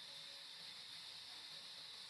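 Near silence: a faint, steady hiss with no distinct events and no machine sound heard.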